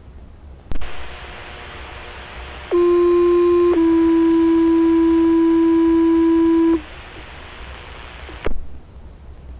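Two-tone sequential fire paging tones over radio static, received on a Baofeng UV-5R handheld radio: a steady tone for about a second, then a slightly lower tone held for about three seconds. The transmission opens and closes with squelch clicks. These are the alert tones that set off the fire station's pagers ahead of a dispatch call.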